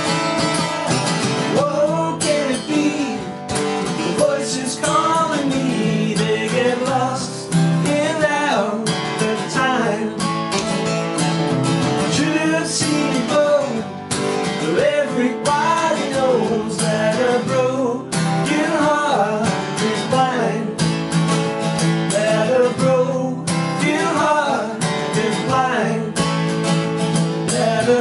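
Two acoustic guitars playing together, strummed chords and picked notes, with a man's voice singing along at times.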